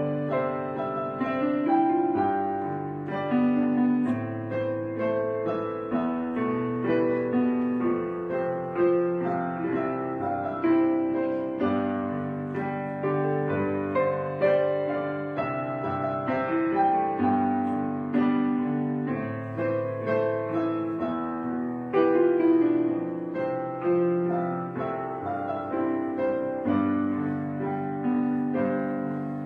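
Background piano music: gentle chords and melody notes struck and left to ring, at an unhurried pace.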